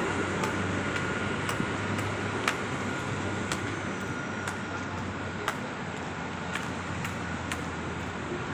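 City street traffic running steadily, with a sharp tick repeating about once a second.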